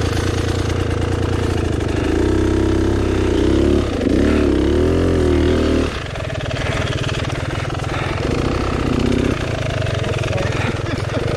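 Enduro dirt bike engine revving up and down in uneven bursts at low speed on a steep, technical track. The revs climb and waver for a few seconds, fall back about six seconds in, then build again.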